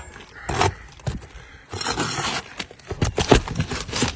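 Asphalt roof shingles being lifted and worked loose by hand: scraping with irregular knocks and taps, thickest in the second half. The shingles come up freely because they are no longer sealed down.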